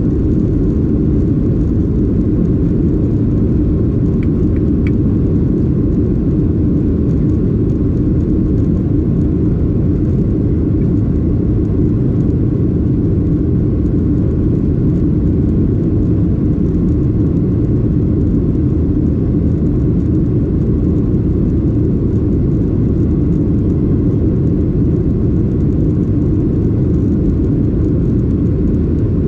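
Steady, loud cabin noise of a Boeing 737-800, its CFM56 jet engines and airflow droning evenly with a faint steady whine above the low rumble.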